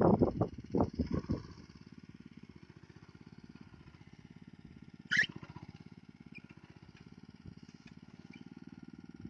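Rice transplanter's engine running steadily at low revs, with one brief sharp sound about five seconds in.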